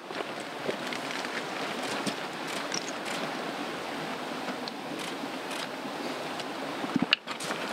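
Steady rushing outdoor background noise with a few light taps and rustles, and a brief louder clatter near the end.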